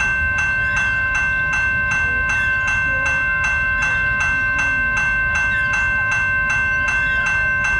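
Railroad grade-crossing bell ringing steadily, about three strikes a second, as a BNSF coal train passes, with the low rumble of the train underneath.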